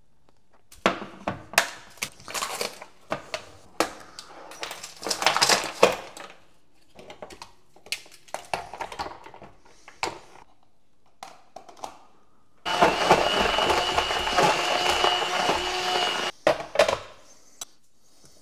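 Ice cubes clicking and clattering as they are popped out of a plastic ice cube tray and dropped, dense over the first several seconds and then scattered. Next, an electric kitchen motor runs steadily with a whine for about three and a half seconds and cuts off suddenly, followed by a few more clicks.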